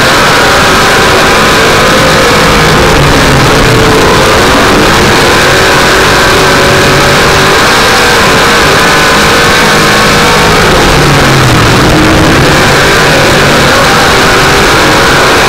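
Dirt-track race car engine at speed, heard loud from inside the car, its pitch rising and falling as the driver works the throttle through the turns.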